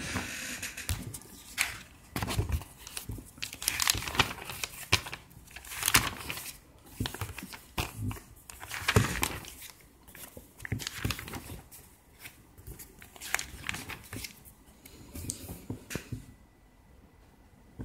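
Glossy paper pages of an IKEA catalogue being handled and turned: an uneven run of rustles and swishes that stops near the end.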